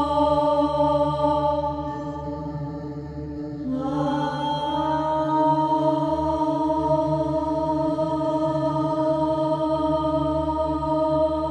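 Dark ambient dungeon synth music: long sustained synthesizer chords, dipping slightly quieter before changing to a new chord about four seconds in.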